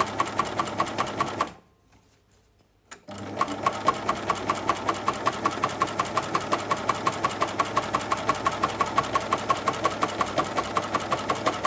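Baby Lock Flatlock coverstitch machine sewing a binding through an 18 mm three-fold binder attachment, running with a steady rhythmic ticking. It stops for about a second and a half shortly after the start, gives a single click, and then runs again.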